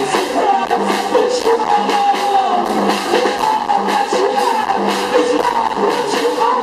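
Live band playing through a PA: electric guitars over a steady drum beat, with vocals.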